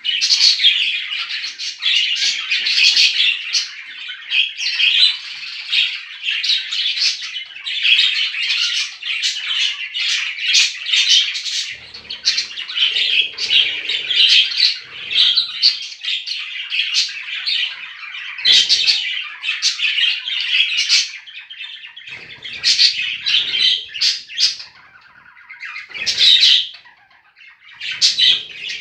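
Several budgerigars chattering continuously, a dense stream of warbling chirps and squawks.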